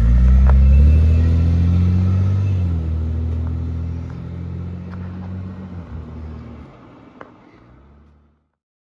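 Toyota Crown Royal Saloon sedan's engine pulling away and accelerating. Its pitch rises for about two and a half seconds, drops back, then fades steadily as the car drives off.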